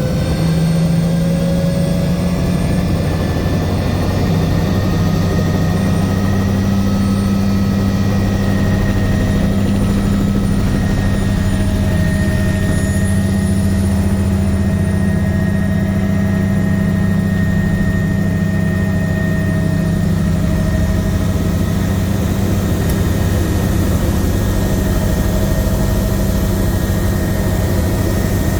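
Bell 505 Jet Ranger X helicopter running, its Safran Arrius 2R turbine and rotors giving a loud, steady drone with a high whine on top. The whine rises in pitch over the first couple of seconds, then holds steady.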